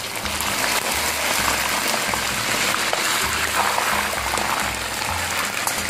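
Battered pork pieces deep-frying in a wok of oil at high heat: a loud, steady sizzle with crackles. This is the second, hot-oil fry that crisps the batter.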